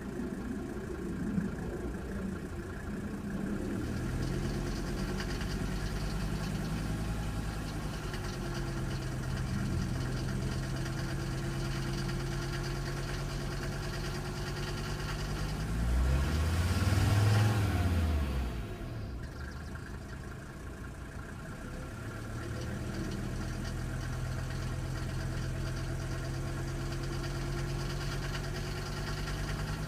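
Mercedes-Benz OM602 five-cylinder diesel idling with a rapid tick, which the owner wonders may be lifter tick. About halfway through it is blipped once, rising and falling back to idle.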